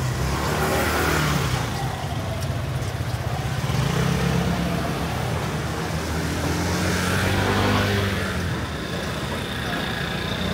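Engine of a road vehicle running at low speed close by, its low hum swelling as it passes, with a second swell from about four to eight seconds.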